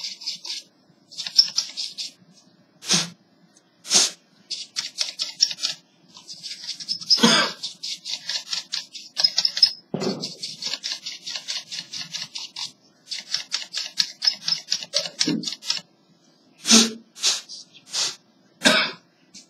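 A brush scrubbing the dusty cooling fan of an HP 6530b laptop in fast short strokes, about ten a second, in runs of a few seconds with pauses between. Several louder single sharp sounds are heard between the runs.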